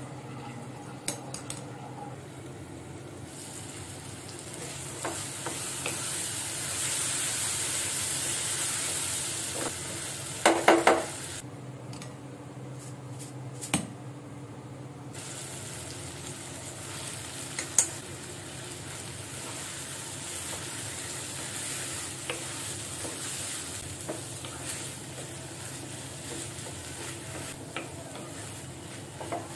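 Rice, red lentils and vegetables stir-frying in a frying pan: a steady sizzle with a spatula scraping and knocking against the pan, the loudest knocks about ten seconds in.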